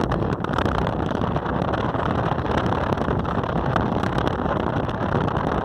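Passenger river boat under way: a steady, even rush of engine and water noise.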